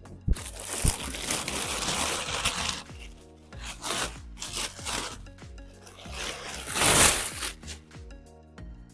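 Packaging rustling and rubbing as the new robot vacuum and its parts are handled out of the box, in uneven bursts with the loudest rustle about seven seconds in, over quiet background music.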